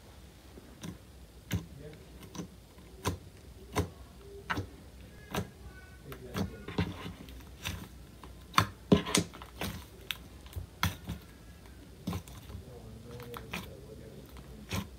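Hand squeezing and poking clear slime, giving sharp pops and clicks at uneven intervals, roughly one a second, bunched closer and louder about halfway through.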